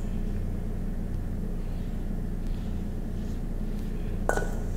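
A steady low machine hum, with one short metallic clink near the end, a metal spoon knocking the steel bowl.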